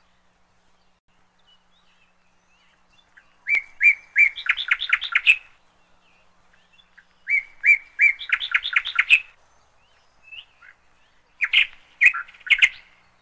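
A songbird singing: two similar phrases about four seconds apart, each a few clear notes followed by a fast run of notes, then a shorter phrase of chirps near the end.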